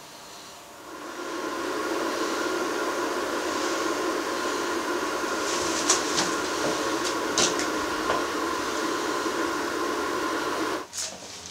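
Steady electrical machine hum and hiss with a few faint clicks, from the device that powers the circle laid on the floor. It starts about a second in and cuts off sharply near the end, as the circle is switched on and then off.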